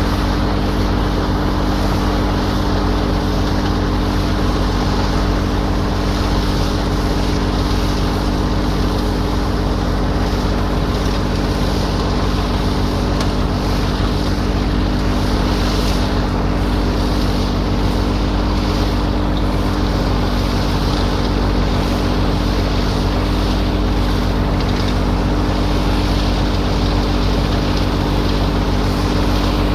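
A motor running steadily at a constant speed: an even hum under a wash of noise, with no change in pitch or level.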